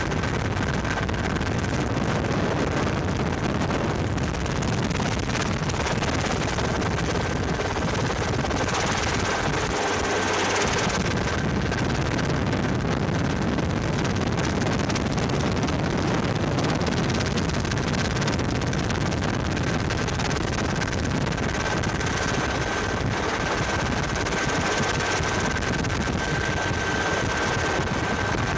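Helicopter engine and rotor noise heard steadily from inside the cabin, with a faint steady high whine over it.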